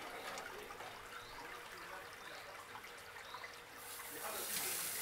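Gas burner of a Beefmaker Pro high-temperature grill hissing steadily while it heats at full power.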